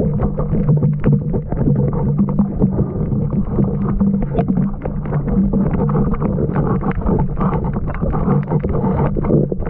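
Muffled underwater sound of a swimmer picked up by a submerged action camera: churning water and bubbles with many small clicks over a steady low hum.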